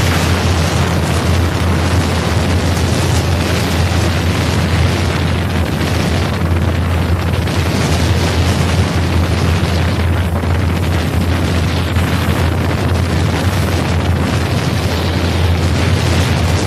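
Wind buffeting the microphone: a loud, steady rumbling rush with no break.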